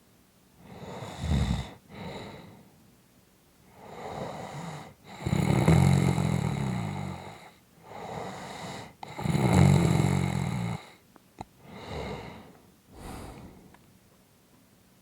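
A person snoring in slow breaths. Three loud, buzzing snores come about four seconds apart, with softer breathy sounds between them, and there is a small click near the end.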